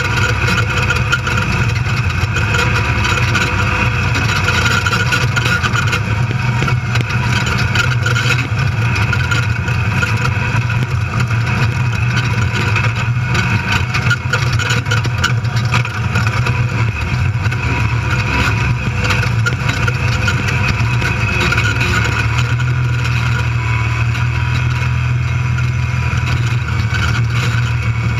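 Desert race car's engine running hard at speed, heard from inside the cockpit, with frequent knocks and rattles from the chassis and cage over rough off-road ground.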